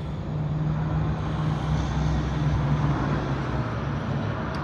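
A motor vehicle passing on the road: a steady low engine hum over traffic noise that swells and then eases off.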